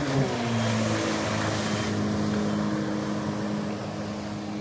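Jet ski engine running at speed, its note dropping sharply at the start and then holding steady, over the hiss of spray thrown off the water.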